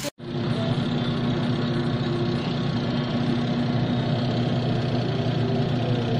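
Top-loading washing machine running a wash: a steady motor hum over water churning in the tub.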